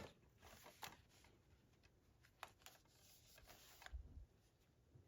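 Faint rustles and light taps of a cardboard digipak and clear plastic slipcover being handled, with a soft low thump about four seconds in.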